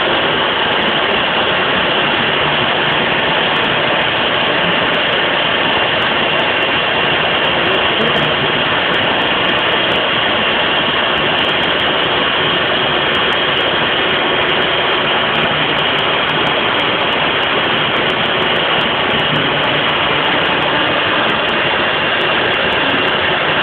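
CNC router spindle running steadily and loudly while its V-bit carves shallow lines into veneered plywood, with a faint high whine over the cutting noise.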